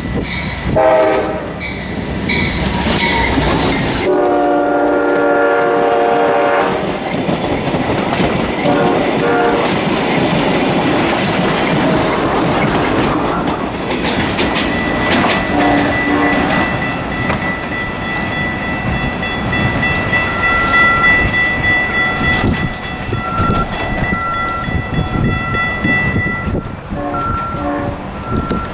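Diesel passenger trains passing, their locomotive horns sounding several times: a short blast, then a long multi-note chord held for about two and a half seconds, then more short blasts. Under the horns is the continuous rumble and wheel clatter of the moving trains, and in the second half a steady high ringing tone with a repeating beep.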